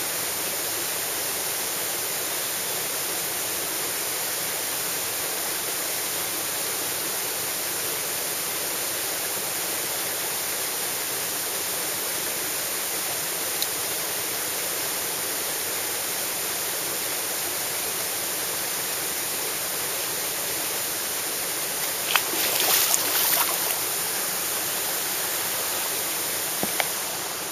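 Mountain stream running steadily, an even rush of water. Near the end a second or so of louder clicking and rustling stands out above it.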